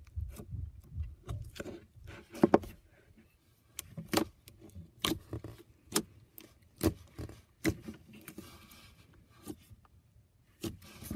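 Stretchy pink slime squished and pressed by fingers, giving sharp irregular pops and clicks about once a second over a soft squishing.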